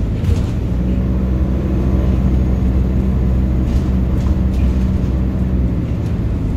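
Interior noise of an ADL Enviro 400H hybrid double-decker bus under way: a steady low drone from the drivetrain over road noise, with a few faint rattles.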